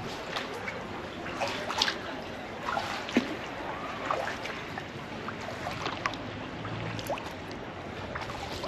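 Sea kayak paddling on calm water: water dripping and trickling off the paddle with small splashes from the strokes, heard as an irregular run of drips and little splashes.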